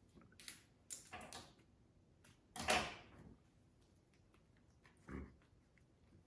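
Short bursts of rustling and crackling from foliage stems being handled and pushed into a moss wreath. The loudest comes about two and a half seconds in, and a shorter, duller knock follows about five seconds in.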